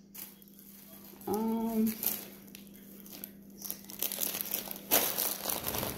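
Packaged snack packets crinkling and rustling as they are handled, with more crinkling in the second half. A brief voice sound comes about a second in, over a faint steady hum.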